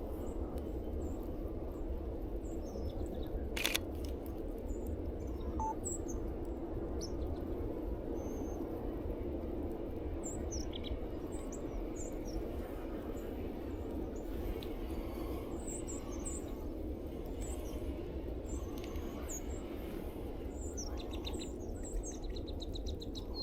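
Small birds chirping: short, high calls scattered throughout, with a quick run of repeated notes near the end, over a steady low background rumble. One sharp click about four seconds in.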